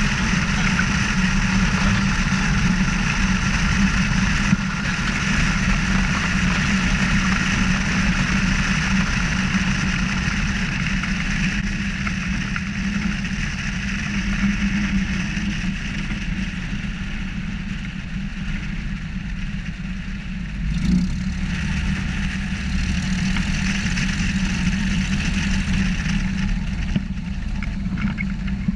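Piper PA-18-150 floatplane's four-cylinder Lycoming engine running at low power with its propeller as the plane rolls and taxis on its amphibious float wheels, with a rush of air across the strut-mounted microphone. The air noise fades as the plane slows, and the engine picks up a little about two-thirds of the way through.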